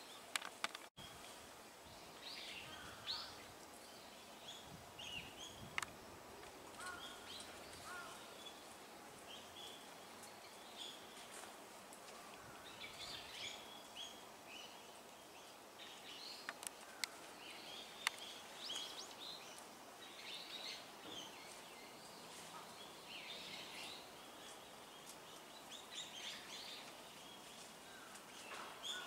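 Faint, scattered short calls and chirps from a flock of azure-winged magpies, in loose clusters throughout, with a few sharp clicks.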